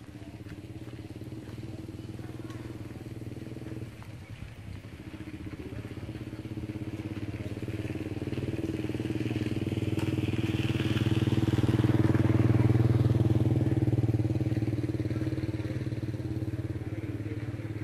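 A motor engine running steadily, growing louder to a peak about two-thirds of the way through and then fading, as it passes by.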